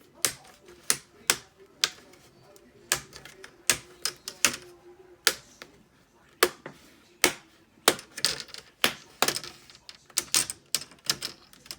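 Plastic clips of a laptop's screen bezel clicking and snapping loose as the bezel is pried off. The clicks are sharp and irregular, coming faster in the last few seconds.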